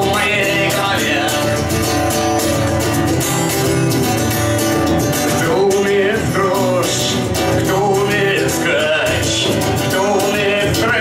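Steel-string acoustic guitar strummed in a steady rhythm, with a man's voice singing over it in places.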